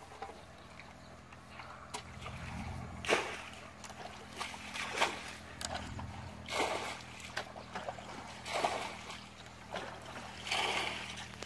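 Muddy water being bailed out of a shallow pool with a plastic bucket: about five scoop-and-splash sounds, roughly two seconds apart.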